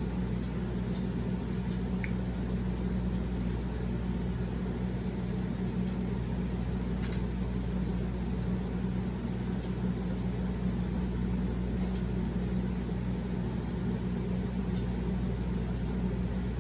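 Steady low electrical hum in the background, with a few faint soft clicks of chewing.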